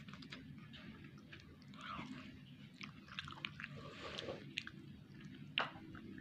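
Someone chewing a mouthful of noodles, with small wet mouth clicks and smacks; one sharper click near the end.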